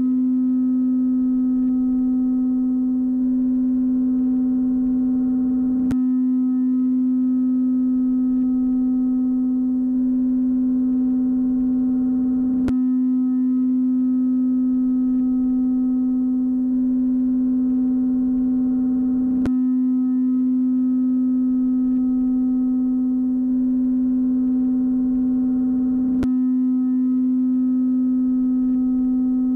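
A single steady low tone held unchanged throughout, a soundtrack drone, with four faint clicks about seven seconds apart.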